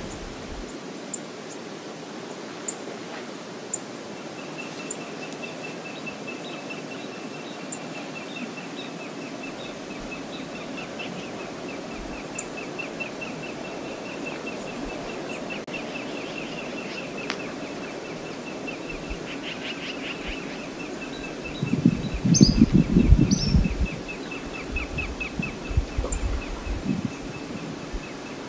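Outdoor riverside ambience: a steady wash of background noise with a high, rapid chirring trill that starts a few seconds in and carries on, and sharp high bird chips now and then. A burst of low rumbling comes about two-thirds of the way through, with a shorter one a few seconds later.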